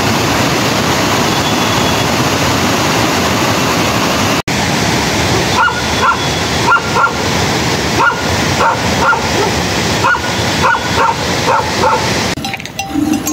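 A dog yipping and whimpering in short high-pitched cries, often in quick pairs, starting about halfway through, over a steady rushing noise.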